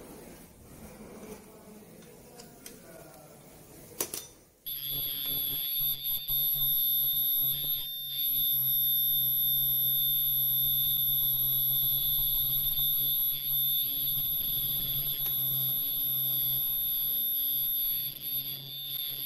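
Disposable mask production machine starting up about four and a half seconds in, just after a sharp click: a continuous high-pitched buzzer tone sounds and holds steady over the low hum of the running machine. Before that, only faint handling sounds.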